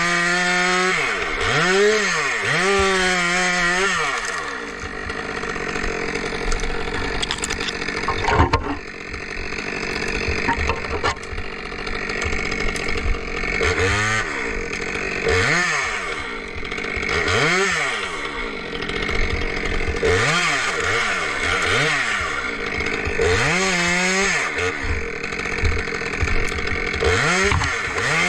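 Two-stroke chainsaw running and cutting wood, its engine pitch repeatedly rising and falling as the throttle is worked, with one sharp knock about a third of the way through.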